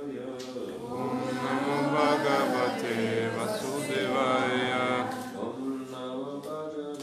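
A man's voice chanting a scriptural verse into a microphone in a sung, melodic recitation, with long held notes.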